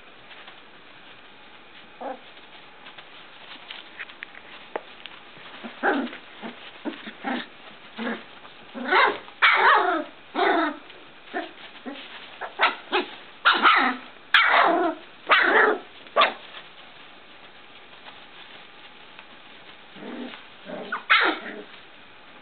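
Young puppies, three weeks old, yipping and giving small squeaky barks and whines as they play, in bunches of short calls that come thickest in the middle and again briefly near the end.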